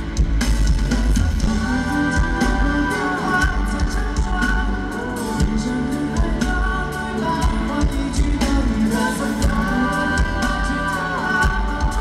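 A man singing pop-rock into a microphone over band backing with a steady drum beat. He holds long notes that bend down at their ends, twice.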